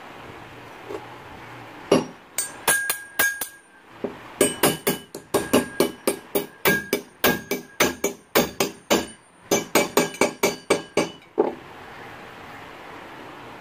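Quick hammer taps on the steel of a mason's trowel, about three a second with a brief pause, each giving a short metallic ring.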